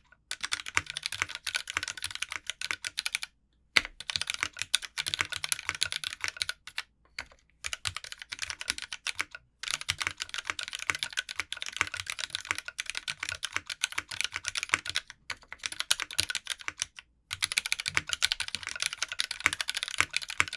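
Continuous typing on an S+R Iron165 mechanical keyboard with lubed vintage Cherry MX Black linear switches in a brass plate, under GMK keycaps. It makes a dense stream of keystroke clacks with occasional deeper thuds, broken by a few brief pauses.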